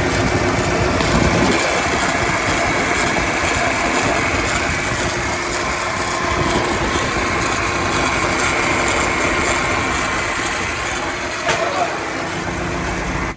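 Audi A6 2.0 TDI four-cylinder diesel engine running, with a steady whine over the engine sound. The extra noise is not from inside the engine but from one of the belt-driven parts: the alternator, the idler bearings or the AC compressor.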